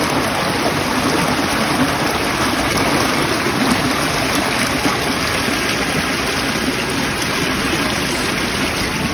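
Shallow rocky creek rushing over and between stones: a steady wash of flowing water.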